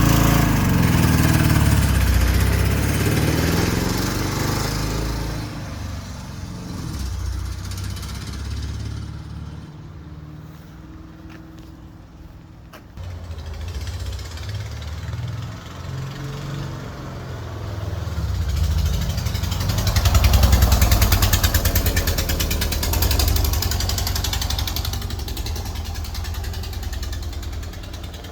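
A van's engine running and making the odd noise it has developed. The sound is loud at the start, drops from about five seconds in, and swells again to its loudest about twenty seconds in.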